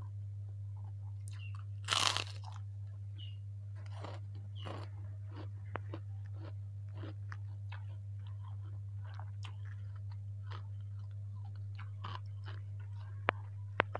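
A bite into a puffy kerupuk (fried Indonesian cracker) with one loud crunch about two seconds in, then close-up chewing with many small crackling crunches. A steady low hum runs underneath.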